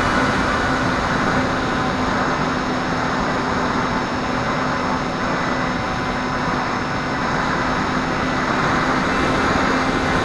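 Onboard audio of a Phantom X61 FPV flying wing in flight: a steady drone from its electric motor and propeller mixed with wind rush.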